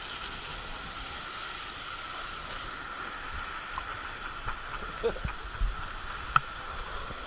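Boat under way, a steady drone with a constant mid-pitched tone, broken by a few sharp knocks a little past the middle.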